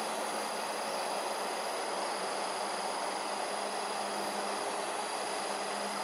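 Steady outdoor ambience: an even hiss with a faint, steady high-pitched insect drone over it.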